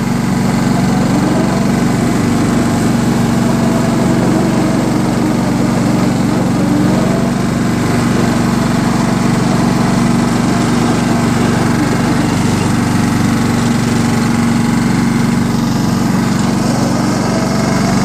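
John Deere STX30 lawn tractor's engine running at a steady speed while the tractor is driven.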